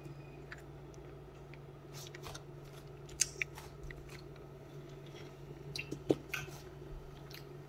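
Eating sounds: crunching and chewing of crisp, sour mango, with scattered light clicks and taps as the slices are handled and dipped in bagoong. A faint steady low hum sits underneath.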